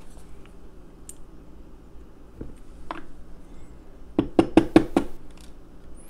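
Tianda padlock being emptied of its pin stacks: a few faint clicks, then about four seconds in a quick run of five sharp metal knocks, under a second in all, as the lock is tapped to shake its pins and springs out.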